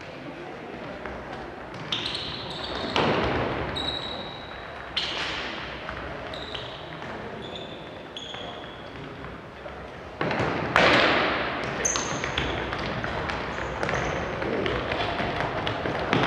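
A football kicked and bouncing on a wooden gym floor during an indoor futsal game, a series of sharp knocks that are loudest about three seconds in and again after ten seconds. Many short, high squeaks of players' shoes on the hardwood come between them.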